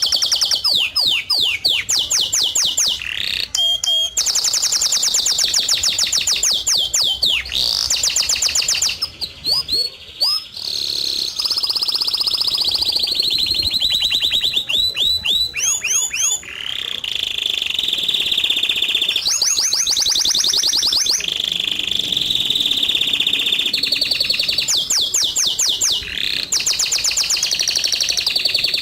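Background soundtrack of continuous birdsong: fast trills, runs of rapid repeated chirps and held high whistles, with a brief break about ten seconds in.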